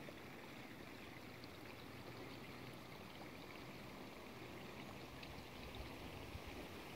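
Faint, even outdoor hiss of a light breeze through a ripening rice paddy, with a few faint ticks.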